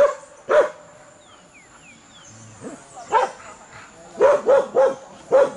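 A dog barking: two barks at the start, then after a pause a quicker run of about five barks in the second half.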